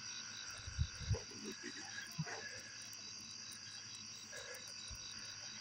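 Night chorus of frogs and insects calling steadily, with one pulsing trill repeating about five times a second. A few low knocks come about a second in.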